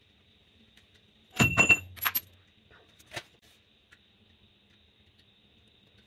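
Small steel parts clinking against each other and the metal machine table. A quick cluster of sharp, ringing metallic clinks comes about a second and a half in, two more follow just after, and a single clink comes about three seconds in.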